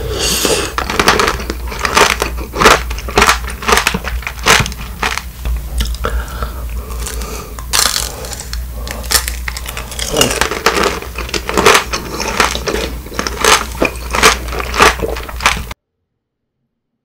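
Close-up crunching and chewing of tangerine tanghulu: the hard candied-sugar shell cracks in a rapid, irregular run of crisp crackles as the coated tangerine is bitten and chewed. The sound stops abruptly near the end.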